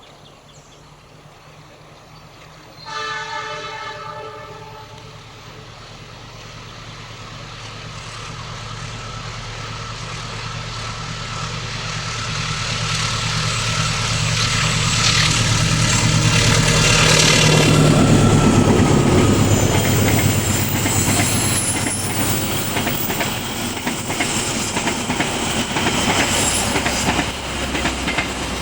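Diesel locomotive sounding its horn once, a short chord about three seconds in. Its engine then grows steadily louder as the train approaches, is loudest about two-thirds of the way through as the locomotive passes, and the carriages follow, rolling past on the rails.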